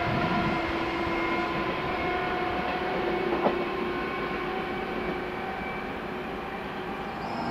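Trenitalia E.464 electric locomotive and its regional train running away along the track, a steady motor hum of several held tones over rolling noise, slowly fading. A single sharp clank sounds about three and a half seconds in.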